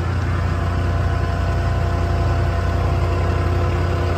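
Diesel engine of a Ram 5500 crane service truck idling steadily: a constant low drone that does not change.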